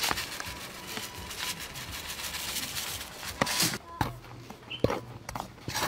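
Metal spoon stirring dry flour and seasoning in a metal bowl: scattered scrapes and light taps, with a few louder scraping bursts in the second half.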